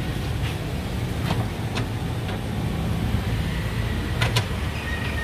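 Steady low rumble of passing street traffic, with a few sharp clicks and knocks from cups and utensils being handled at the stall.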